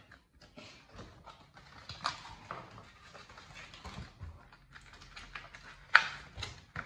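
Pokémon trading cards and mini packs handled by hand: a string of small clicks and rustles, with one sharper, louder click near the end.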